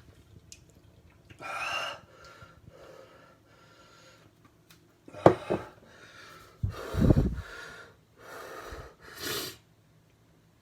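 A man breathing hard in separate puffs and gasps against the burn of a superhot chocolate jigsaw chili in his mouth, the loudest a heavy blast of breath about seven seconds in.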